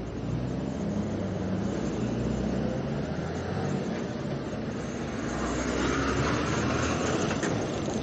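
Road traffic, with the steady low engine rumble of a refuse-compactor truck running close by, growing somewhat louder toward the end.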